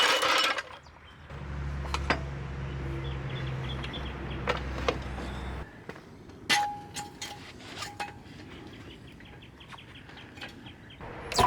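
A steady low hum for a few seconds that cuts off suddenly, then metal clinks, clanks and quick ticking as a floor jack and jack stand are worked under the car.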